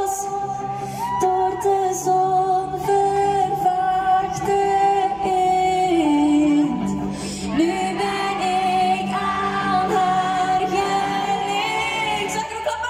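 A woman singing live into a microphone over pop music, amplified through stage speakers and heard from the audience.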